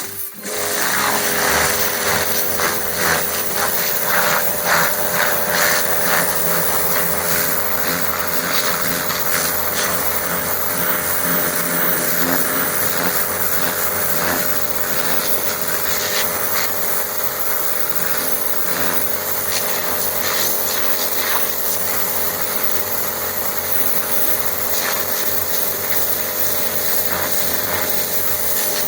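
Kärcher K5 electric pressure washer starting abruptly and running steadily: the motor and pump give a steady whine, under the hiss of the high-pressure water jet spraying.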